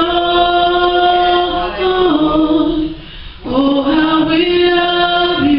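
A woman singing a gospel worship song into a microphone. She holds long sustained notes in two phrases, with a brief breath about three seconds in.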